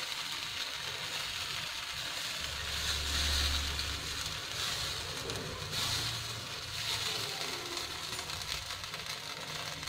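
Semolina batter sizzling on a hot non-stick tawa as a steady hiss, with a brief low hum about two and a half seconds in.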